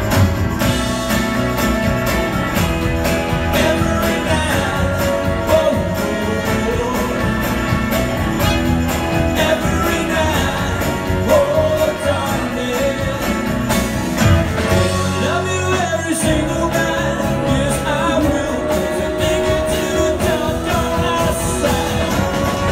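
Live rock band playing a song with lead and backing singing over drums, guitars and keyboards, recorded from the audience in a concert hall.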